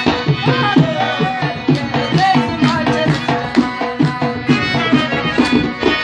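Live Pashto folk music: two harmoniums holding sustained chords and melody over a quick, steady beat on a hand-played dholak barrel drum, with rubab plucking.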